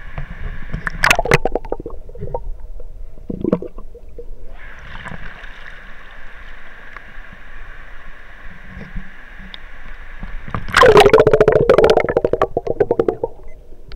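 Stream water rushing and gurgling, muffled through an action camera's waterproof case, with a few sharp knocks about a second in and again a few seconds later. Near the end comes a loud two-second spell of rapid gurgling and splashing.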